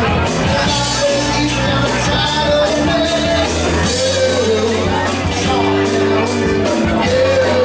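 Live rock band playing through a PA in a room: drums keeping a steady beat under electric guitar, with a sung melody line over the top.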